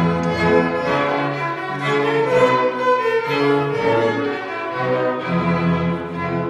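A string ensemble playing, with violins over held cello notes.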